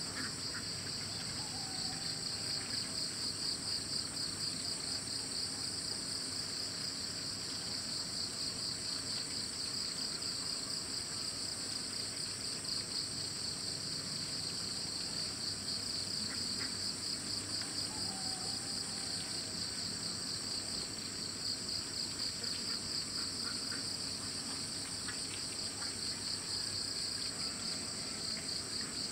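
Chorus of insects, likely crickets, making a steady, dense, high-pitched trilling at two pitches that pulses rapidly.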